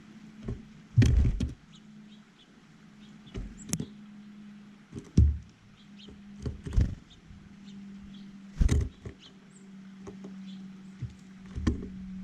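Birds at a feeder close to the microphone: irregular knocks and taps as they land, hop and peck, about a dozen in all, with the loudest clusters about a second in, around five seconds and near nine seconds. A steady low hum sits underneath.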